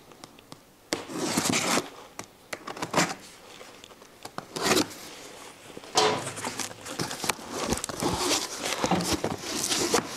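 Packing tape being torn from the top of a cardboard box in a few short rips, then the cardboard flaps rustling and scraping as they are pulled open.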